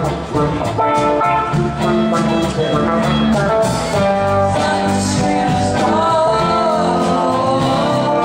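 Live rock band playing: electric guitars over bass guitar and drums, with a sustained lead line that bends and wavers in pitch in the second half.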